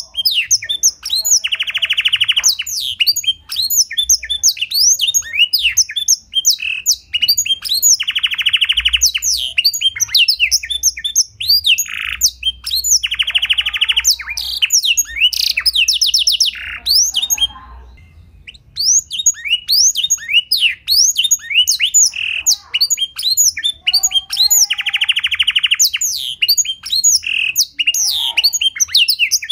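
Domestic canary singing song learned from a black-throated canary: a continuous run of rapid chirps and whistles broken by several fast trills, with a brief pause about two-thirds of the way through.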